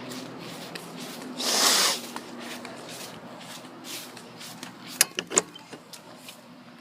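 Steady low hum of a running outdoor central air-conditioner condenser unit. A loud brief rustle of handling or wind comes about a second and a half in, and a couple of sharp clicks come about five seconds in.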